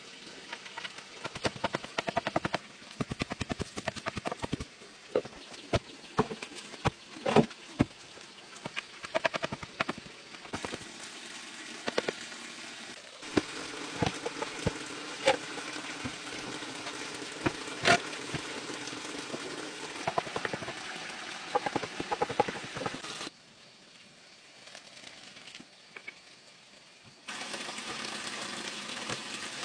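Irregular sharp knocks and thuds of hand work: a wooden stick tamping soil around bamboo posts and cut bamboo poles being handled and struck, over a steady background hiss. A quieter stretch near the end holds only a few soft knocks.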